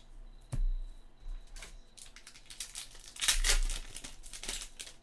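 A foil trading-card pack crinkling in the hands as it is opened, with a single knock about half a second in and then a dense run of crinkling from about two seconds in.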